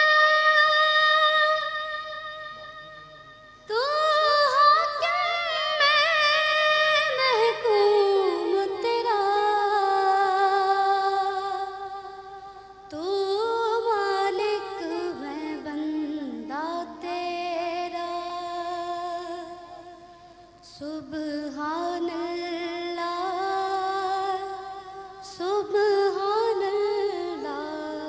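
A woman singing an Urdu hamd, a devotional hymn praising God, unaccompanied into a microphone. She sings long, drawn-out phrases with short breaks between them, about 3, 12 and 20 seconds in.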